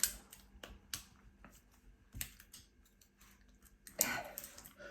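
Scattered light clicks and taps, with a short rustle about four seconds in.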